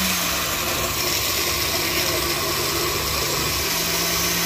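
Countertop blender running steadily, its motor humming as it blends a jar of whole berries.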